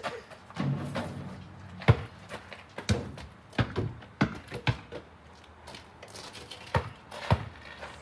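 A basketball bouncing on the ground after a shot, a run of sharp thuds that come closer together as it settles, then two more thuds near the end.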